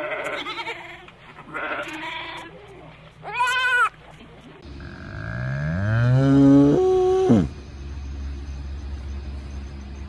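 Goats bleating three times, the third a high, quavering bleat. Then a cow gives one long moo that climbs in pitch and drops off sharply at the end.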